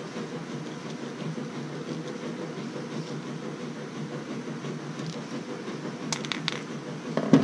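Steady low background hum with a faint steady tone. About six seconds in come a few light clicks from the billet crankcase breather and its filter being handled and tightened.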